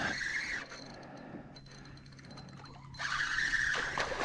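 Spinning reel buzzing under load from a hooked fish, in two short spells: about half a second at the start and about a second near the end.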